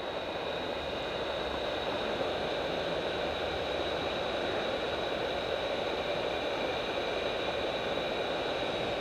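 Hot-air reflow station's blower pushing air out through the handpiece nozzle: a steady rushing hiss with a faint high whine, used here to soften lead-free solder while desoldering a surface-mount part.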